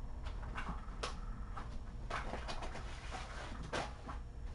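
Scattered light taps and clicks, several in a few seconds, over a steady low hum: kittens moving about and playing with toys on the floor.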